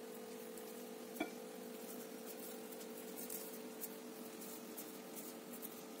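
Quiet room tone with a steady faint hum, one light clink about a second in, and faint soft ticks as hands handle butter and press potato-and-meat dough.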